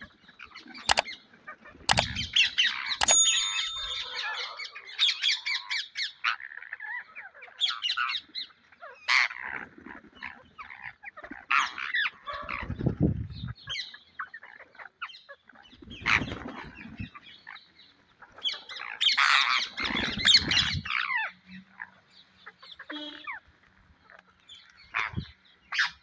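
A flock of rose-ringed parakeets squawking and chattering, with many short, shrill calls overlapping. Bursts of wing flapping come close by several times as birds take off and land.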